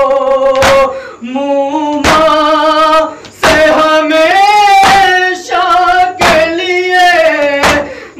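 A noha, a Shia mourning chant, sung in long held lines with slow bends in pitch, over a heavy beat of matam (chest-beating) that falls evenly about every one and a half seconds.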